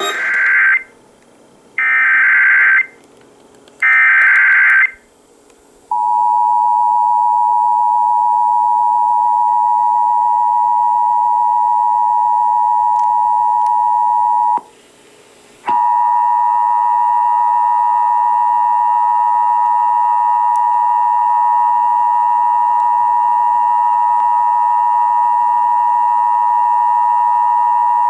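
Emergency Alert System test broadcast on FM radio: three short warbling bursts of SAME header data, then the steady two-tone EAS attention signal. The tone drops out for about a second midway and then resumes.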